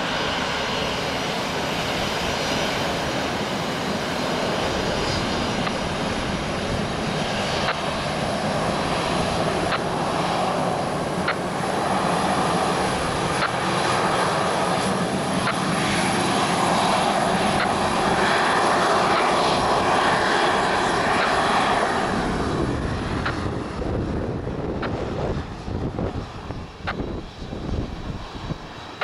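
Boeing 737-300's CFM56 turbofan engines at taxi power as the jet rolls past: a steady jet rumble with a high fan whine. It grows louder to a peak in the middle, then fades and turns uneven over the last few seconds as the aircraft moves away.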